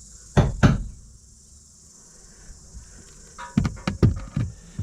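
Sharp knocks: two close together about half a second in, then a quick run of four or five knocks starting about three and a half seconds in, over a steady high hiss.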